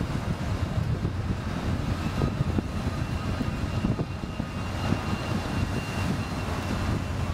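Ultra Heavy-Lift Amphibious Connector prototype driving up the beach on its flotation-pad tracks. Its engine runs with a rough, steady low rumble and a thin high whine.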